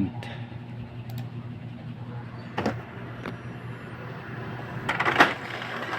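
Epson L120 inkjet printer running a print job: its motor hums steadily as it feeds a single sheet, with a couple of short clicks partway through and a louder burst of mechanism noise about five seconds in. The pickup roller's spring has just been refitted, and the printer now takes one sheet at a time.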